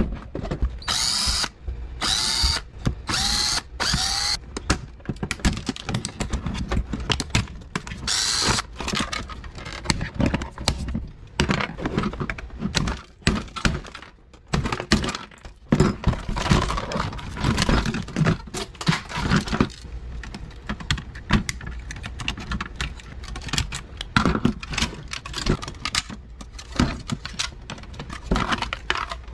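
Cordless drill backing screws out of a Keurig coffee maker's plastic housing: short whines that rise and fall, four close together at the start and one more a few seconds later. Then a long run of knocks, hammer blows and plastic clatter as the housing is hammered and pried apart.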